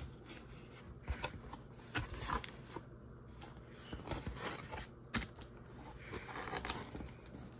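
A cardboard box and the plastic bag inside it being handled: scattered rustles, scrapes and light knocks.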